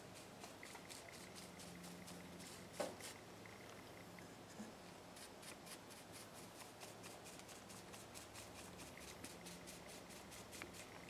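Faint, rhythmic brushing of a paintbrush working varnish over a painted wood carving, about three short strokes a second, with one louder knock about three seconds in.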